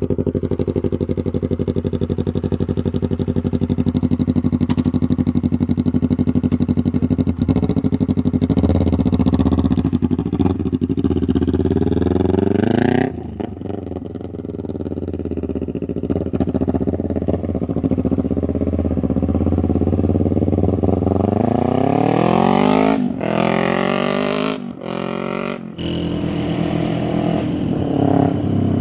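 Yamaha YZF-R3's 321 cc parallel-twin engine running through an Austin Racing muffler, idling in neutral and being revved: the revs climb slowly and drop off about halfway through, climb again and drop near the end with a couple of quick blips, then settle back to idle.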